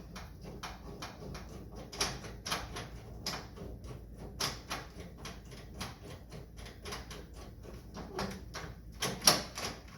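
Small, irregular clicks and scrapes of metal from fitting and working the door lock of a 1977 Chevrolet C10, a few per second, with a couple of louder knocks near the end.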